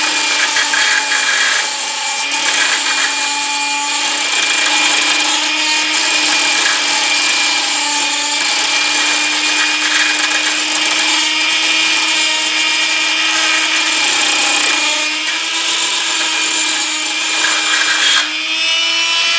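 Dremel rotary tool running steadily, spinning a small metal wheel blank while a triangle file scrapes its edge with a harsh hiss. Near the end the filing stops and the motor's pitch rises slightly as the load comes off.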